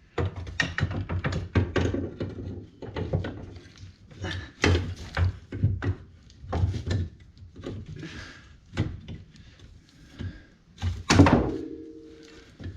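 Irregular metal knocks and clunks of a shock absorber and tools being handled while a new rear shock is worked into place on a Polaris Ranger XP 900. One louder metallic clang about 11 seconds in rings briefly.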